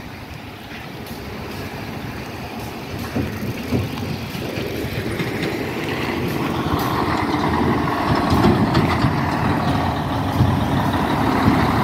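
Heavy diesel dump truck approaching along the road, its engine growing steadily louder as it nears.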